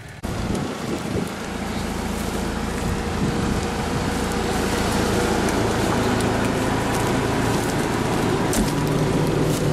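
Homemade off-road truck's engine running hard under load at close range, its tyres churning through swamp mud and reeds. The truck is pulling on its front axle only. The sound cuts in suddenly just after the start and grows slowly louder.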